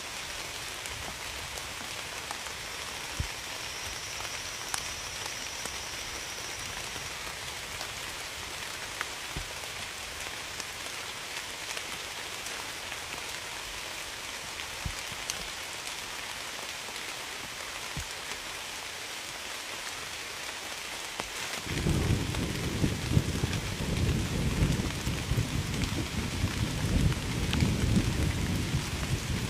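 Steady rain falling on a surface, with scattered single drops ticking. About two-thirds of the way through, a low rumble of thunder sets in and grows louder.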